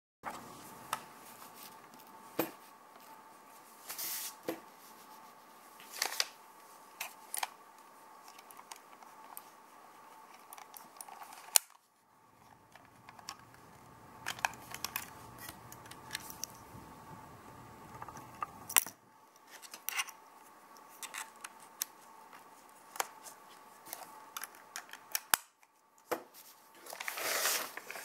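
Irregular small clicks, ticks and light taps of objects being handled, with a sharp click about twelve seconds in and a longer scraping rustle near the end, over a faint steady electrical whine.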